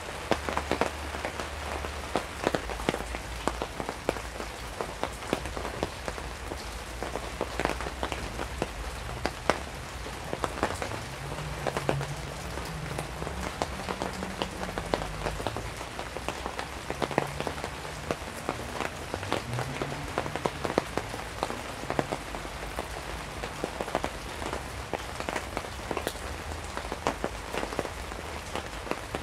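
Steady rain pattering on a surface, with many separate sharp drop taps.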